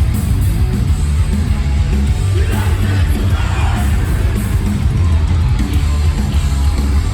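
Live metalcore band playing loud and heavy, with distorted guitars, drums and bass, and screamed vocals, heard through a phone's microphone in the crowd.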